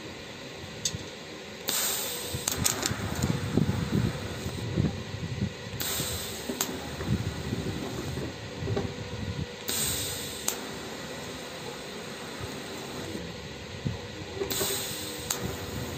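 TIG welding arc on stainless steel exhaust pipe, hissing in four short bursts of about a second each, as for tack welds, over a steady background hiss.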